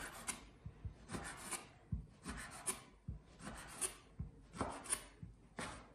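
Chef's knife slicing guanciale into strips on a wooden cutting board: a slicing stroke about every half second, with the blade knocking lightly on the board now and then.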